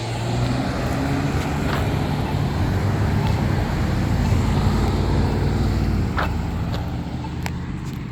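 Road traffic: motor vehicles driving past, a steady rush of engine and tyre noise that eases off over the last couple of seconds.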